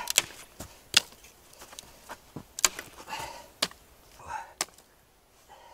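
Dry dead branches snapping as they are broken by hand for kindling: about six sharp cracks, roughly a second apart, with quieter rustling between.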